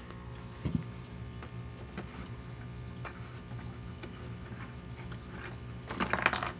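Small plastic clicks and ticks of LEGO pieces being handled as the minifigure inside the mob spawner is spun by hand, over a steady low hum. A louder clatter of handling comes near the end.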